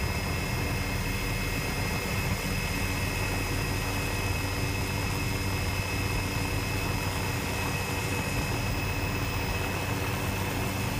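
Helicopter in flight, heard from inside: a steady low drone from the engine and rotor, with a constant high whine from the turbine.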